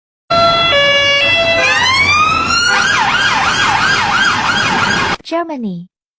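British police car siren: a two-tone hi-lo for about a second, then a rising wail, then a fast yelp warbling up and down about three times a second, cut off suddenly about five seconds in.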